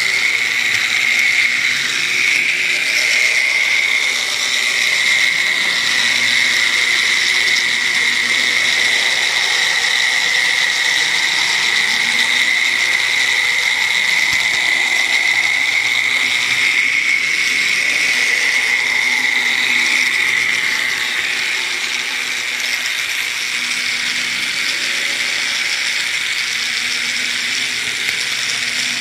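N gauge model locomotive running along the track, heard from aboard the train: a steady high-pitched whine from its motor and gearing over a rattling hiss of wheels on rail. The whine fades about two-thirds of the way through while the running noise carries on.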